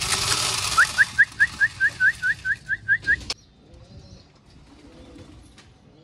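Wheat grains pattering from a hand into a plastic food bowl, a dense hiss that cuts off suddenly about three seconds in. Over it comes a quick run of about a dozen short rising chirps, about five a second.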